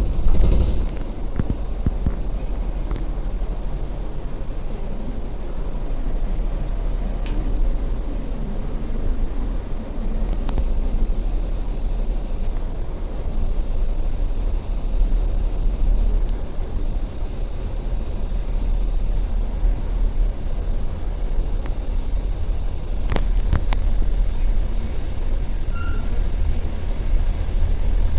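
Steady low rumble of a train at a railway station, with a few sharp clicks and knocks.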